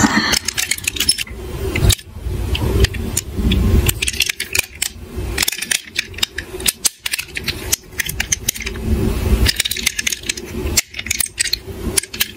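Diecast metal toy police cars clinking and clicking against each other as they are handled, with irregular rattles and low knocks and rubbing from handling close to the microphone.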